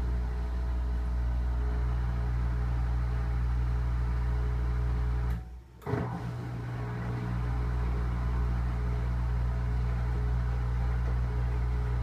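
General Electric front-loading washing machine's drum motor humming steadily as it tumbles a small load of towels. About halfway through the hum cuts out for about half a second, then comes back with a click, as the drum reverses direction.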